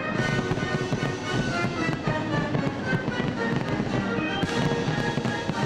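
Aerial fireworks bursting in quick, continuous succession, with crackling and bangs, over music.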